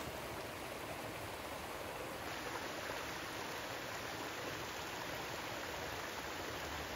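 Water running steadily over a small creek cascade a few feet high.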